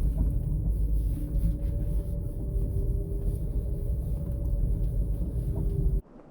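Nordic skate blades gliding over thin new lake ice, about 45 mm thick, making a deep, steady rumble with faint humming tones from the ice. It cuts off abruptly near the end.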